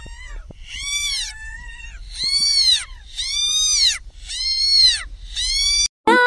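A kitten meowing again and again: about six high-pitched meows, each rising and then falling in pitch and lasting about half a second.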